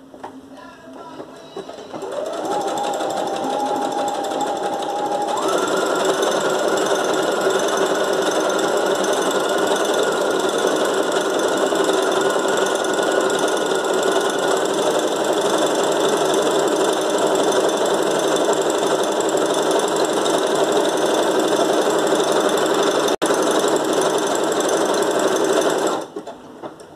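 Brother FS101 computerized sewing machine stitching a decorative embroidery stitch. The motor and needle start about two seconds in, run slowly for a few seconds, then speed up and run steadily at a higher pitch until they stop about a second before the end.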